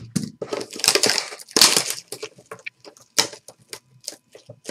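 Clear plastic shrink-wrap being torn and crumpled off a sealed card box: dense crinkling for the first two seconds, then scattered sharp crackles.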